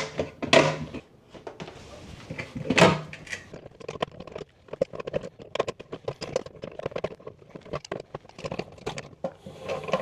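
Metal hand tools clicking and knocking against a washing-machine shut-off valve as its tight top part is worked loose and unscrewed. A few loud knocks in the first three seconds, then a run of quick, irregular clicks.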